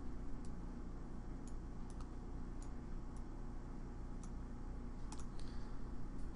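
About a dozen sharp, irregular clicks of a computer mouse button, a few in quick succession about five seconds in, over a steady low hum.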